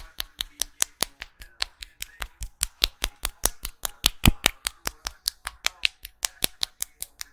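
Rapid, rhythmic hand-slap percussion massage: a barber's hands strike in crisp slaps at about five or six a second, one a little past the middle louder than the rest.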